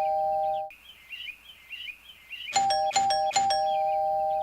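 Two-note ding-dong doorbell chime. One chime dies away in the first second. About two and a half seconds in, the bell is pressed three times in quick succession, and the last chime rings on.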